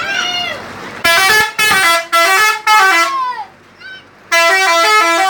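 Telolet bus horn, a set of multi-tone musical horns, playing a quick tune of stepped notes: one run starting about a second in and lasting about two seconds, then another burst near the end.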